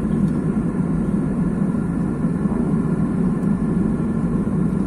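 Steady roar of an Airbus airliner in flight: its engines and the airflow heard from inside the passenger cabin, even and unbroken.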